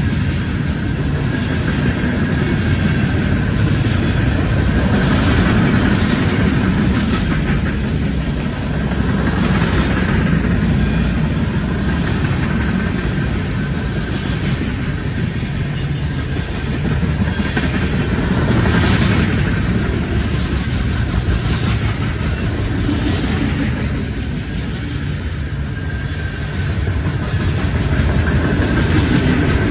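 Freight cars of a passing mixed freight train rolling by close at hand: the loud, steady rumble of steel wheels on the rails.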